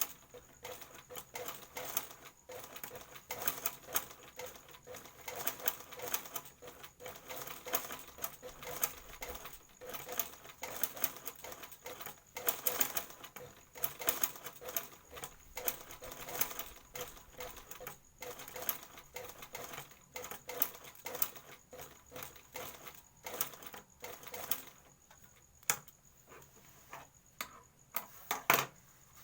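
Sewing machine stitching a skirt hem, a dense, uneven clicking that keeps stopping and starting, with one louder knock near the end.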